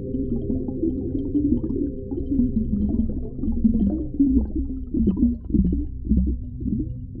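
Underwater ocean ambience: a deep, muffled rumble with gurgling. Low wavering sounds that bend up and down grow stronger from about halfway through.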